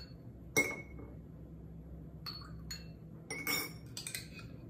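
Metal spoon clinking against a small glass jar as sauce is spooned into it: one sharp clink about half a second in, then a few lighter clinks, each ringing briefly.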